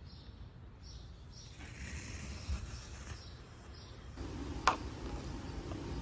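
Kinetic sand being handled, giving a faint low rumble and soft rustle, with one sharp click a little over three-quarters of the way through.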